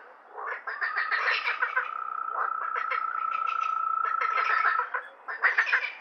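Frogs calling in bouts of rapid, rattling croaks. A steady high-pitched trill is held for about four seconds, starting about a second in.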